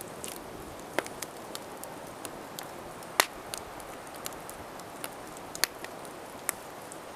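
Wood campfire crackling: a steady hiss with scattered sharp pops, the loudest about three seconds in.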